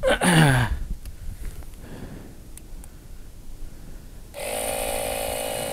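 Craftsman 12-volt Nextec cordless air compressor switching on about four seconds in and running steadily, pumping air into a motorcycle tire that is losing pressure fast from a screw puncture. A brief man's vocal sound comes at the very start.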